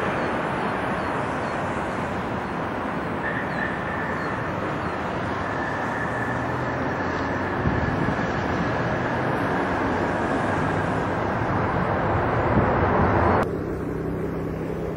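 McDonnell Douglas MD-11 tri-jet's engines running steadily as the aircraft rolls out after landing, a steady roar with wind noise and a faint high whine. About a second and a half before the end the sound changes suddenly to the lower hum of an Airbus A380's engines on approach.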